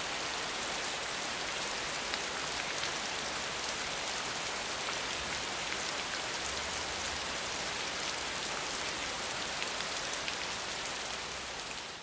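Steady rain falling on a hard surface, a dense patter of many small drops, beginning to fade out right at the end.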